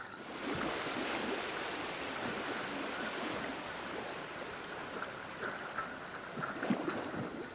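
Sea water splashing and lapping around a boat's stern and the swimmers beside it, a steady wash of noise with a few faint knocks near the end.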